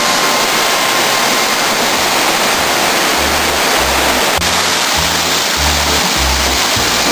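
Waterfall rushing with a steady roar of falling water, mixed with background music whose bass notes change every half second or so.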